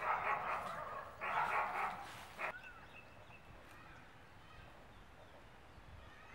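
A dog barking in two rapid bouts over the first two and a half seconds, then falling quiet.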